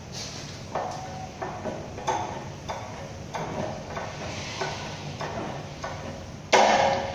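Manual chain hoist being hand-hauled to lift an engine: the load chain rattles through the hoist in rhythmic pulls, about one clatter every 0.6 s, with one much louder metallic clank near the end.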